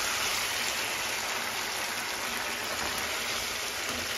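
Oil and teriyaki sauce sizzling steadily in a hot skillet around fried salmon bites.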